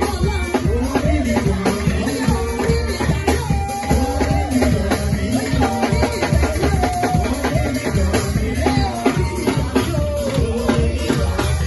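Rhythmic music with steady drumming, shaken rattles and singing, continuing without a break.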